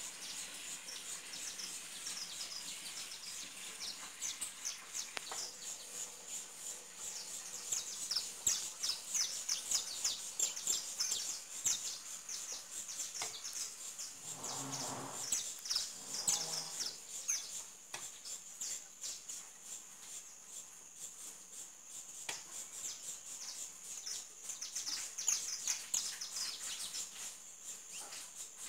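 Outdoor ambience: many small birds chirping rapidly over a steady high insect drone, with two short low calls about halfway through.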